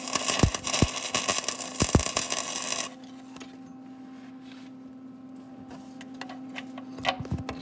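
Electric arc welder crackling and sizzling as it welds the turbo oil-return fitting onto the oil pan, with a few dull thumps. It stops abruptly about three seconds in, leaving a steady low hum.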